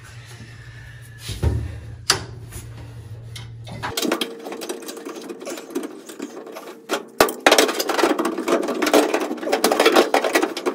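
Hand tools and metal parts clicking and rattling as the accelerator pedal assembly is fitted on a bare steel floor pan. A couple of single clicks come first, then from about four seconds in a dense, rapid run of clicks and rattles.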